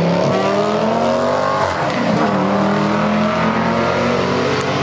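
Drag-strip launch of a turbocharged LS-VTEC Honda Civic hatchback and the car in the next lane, accelerating hard from the line. The engine note climbs, drops at a gear change about two seconds in, then climbs again as they pull away down the strip.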